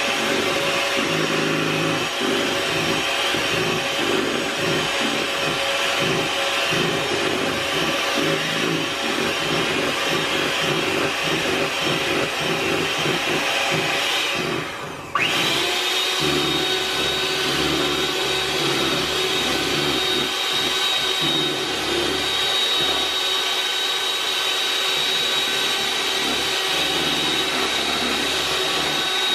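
Hamilton Beach electric hand mixer running steadily, its beaters whipping instant coffee, sugar and hot water into a thick foam for whipped dalgona-style coffee. About halfway through it cuts out for a moment and starts again with a slightly higher whine.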